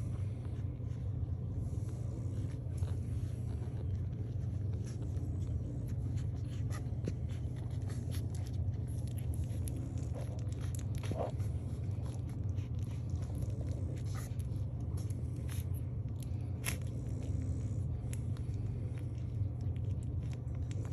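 Week-old French bulldog puppies suckling: many small wet clicks and smacks, with a short squeak about eleven seconds in, over a steady low hum.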